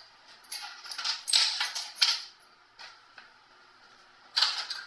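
Rustling and brushing right on a phone's microphone, in a run of short noisy bursts, as long hair sweeps over the phone.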